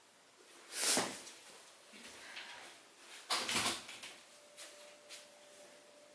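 Furniture and door noises as a person gets up from a desk chair and walks out of a small room: a scrape about a second in, a louder knocking cluster a little past three seconds, then two light clicks.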